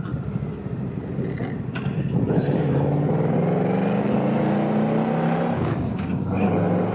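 Honda Gold Wing 1800's flat-six engine pulling away under throttle, its pitch rising steadily for about three seconds. About six seconds in it drops as the dual-clutch gearbox shifts up, then starts climbing again.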